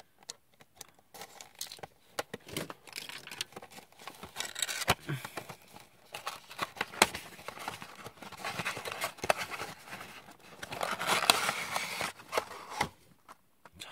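Cardboard toy box being opened and its clear plastic blister tray slid out: irregular crinkling, cardboard scraping and light clicks, busiest and loudest near the end.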